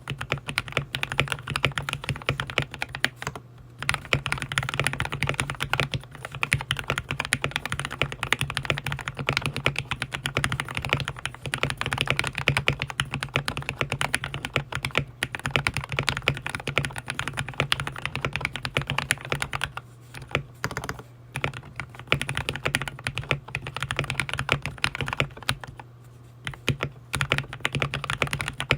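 Continuous typing on an RK61 Pro 60% mechanical keyboard fitted with lubed and filmed Gateron Milky Yellow linear switches, foam and tempest dampening mods and PBT XDA keycaps: a dense stream of keystrokes with a few brief lulls, over a steady low hum.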